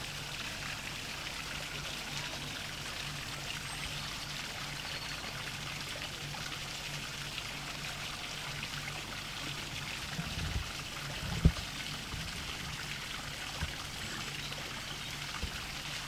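Small garden waterfall: water pouring from a wooden chute and splashing steadily into a pond. A steady low hum runs underneath, and a few dull thumps come about two-thirds of the way through, one of them sharp and louder than the water.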